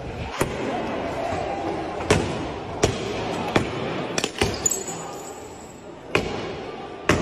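About eight or nine sharp bangs at irregular intervals, echoing through a shopping mall, over a background of crowd voices.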